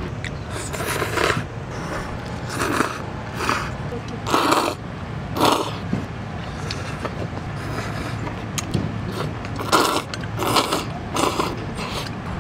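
Noodle soup being slurped: about eight short slurps in two runs, with a pause of a few seconds between them, over a steady low hum.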